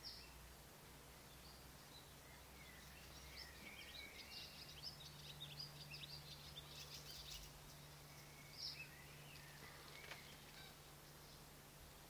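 Faint bird chirping over a quiet background with a low steady hum: a busy run of short high calls from about three seconds in until about seven, then a few scattered chirps.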